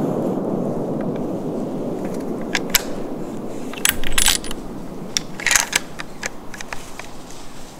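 Sharp metallic clicks and rattles, in small clusters about three, four and five and a half seconds in, over a low rumbling noise that fades away.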